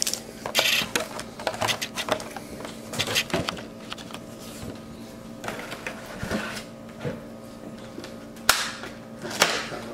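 Foil trading-card booster packs and plastic packaging being handled and set down: scattered light crinkles, clicks and taps, with one sharper click about eight and a half seconds in, over a faint steady hum.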